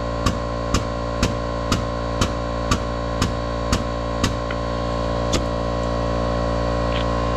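Background music: a sustained chord with a sharp beat about twice a second, the beat dropping out a little after five seconds while the chord holds on.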